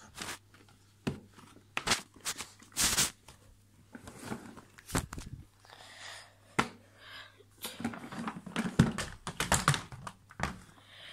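Plastic clicks, knocks and rustling from a Numatic tub vacuum cleaner being handled while it is not running, its top taken off and its cloth filter touched.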